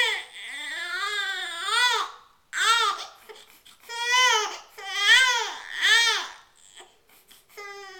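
Infant crying in a string of short, high-pitched wails that rise and fall, with a pause about six seconds in before another cry near the end.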